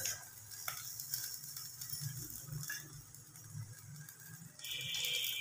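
Paratha frying in oil in a nonstick pan: a faint, steady sizzle with a few light clicks. Near the end a louder high tone comes in.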